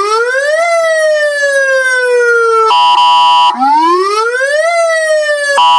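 Electronic vehicle siren sounding through a 200-watt horn speaker, cycling through a tone that rises for about a second and then falls slowly, then a short flat, harsh horn blast about three seconds in, then another rise and fall. A second horn blast comes near the end.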